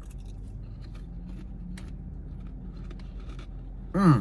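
Buttermilk ranch Quaker rice crisps being bitten and chewed, heard as sparse faint crunches and small cracks over a low steady hum, with a man's voice coming in briefly near the end.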